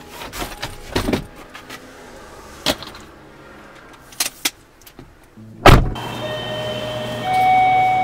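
A suitcase knocking and bumping against a car's back seat as it is loaded in, then a car door slammed shut about six seconds in, the loudest sound. After the slam comes a steady low hum with a few faint steady tones.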